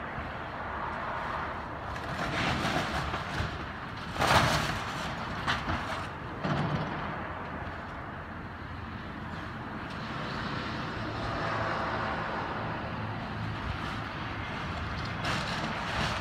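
Track hoe (excavator) tearing into a house: steady machine noise, with a loud crash of breaking material about four seconds in and a few smaller knocks after it.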